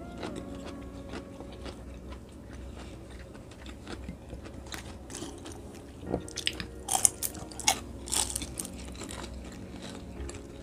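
Close-miked chewing of crisp food, with a cluster of loud, sharp crunches from about six to eight and a half seconds in.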